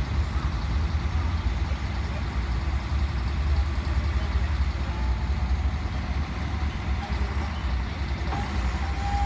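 Diesel engine of a truck-mounted tree spade running steadily with a deep rumble, with a faint high tone near the end.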